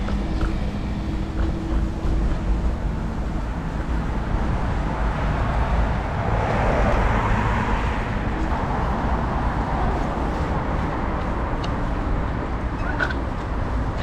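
City street traffic noise with a steady deep rumble. A vehicle swells past about halfway through and fades.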